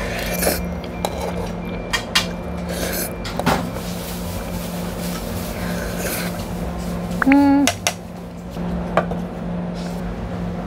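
A metal spoon scrapes and clinks against a thin aluminium ramen pot as the last of the noodles are scraped out and eaten, with a few dish knocks. A steady low hum runs underneath, and a short pitched hum sounds about seven seconds in.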